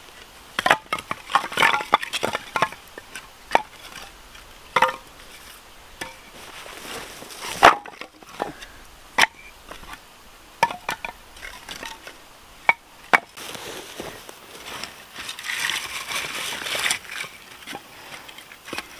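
Dry, weathered wooden boards clattering as an armful is dropped, then single sharp wood-on-wood knocks as boards are laid one by one into a stacked fire lay. A stretch of rustling near the end.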